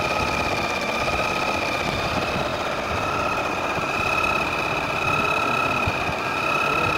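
Janome 6000 computerized sewing machine running continuously at speed, stitching a programmed decorative line (the "machhi kanta" fish-bone pattern). There is a steady motor whine over a fast, even patter of needle strokes.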